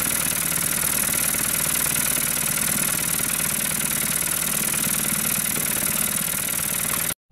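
Vehicle engine idling steadily, a low hum under a constant hiss, cutting off suddenly near the end.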